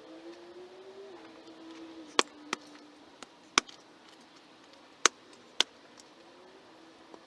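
A tool striking rock while a boulder blocking a drainage trench is broken up: five sharp, uneven strikes over a steady low hum.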